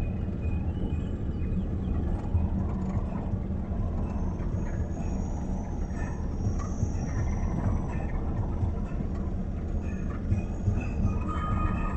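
Tractor's diesel engine running steadily just ahead while it tows a dead-engined mini-truck, heard from inside the towed vehicle's cab together with the rumble of its tyres on the road.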